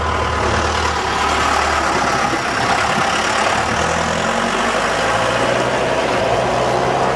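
An engine running steadily, its low hum stepping in pitch a few times.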